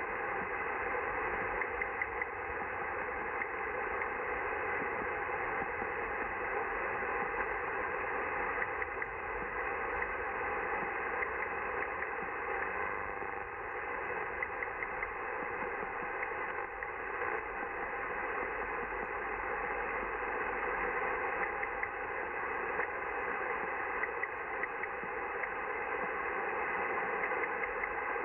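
Audio from a Yaesu FRG-100B shortwave receiver: steady band-limited static hiss with a strange, irregular ticking and clicking signal running through it, an unidentified signal.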